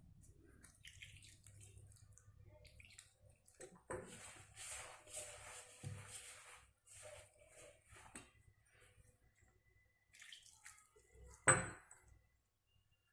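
Water sprinkled over shredded cabbage and flour in a bowl and hands mixing it into vada batter, with faint wet dripping and rustling. A single sharp knock near the end.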